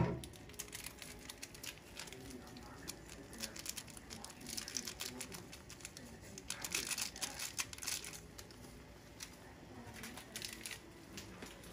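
Seasoning sachet crinkling as its powder is shaken into a pot of boiling instant noodles, in two spells about four and seven seconds in, over the bubbling of the boiling water.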